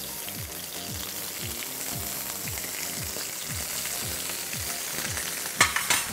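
Stuffed squid tubes sizzling steadily in hot oil in a frying pan, with a short rattle of sharp clicks near the end.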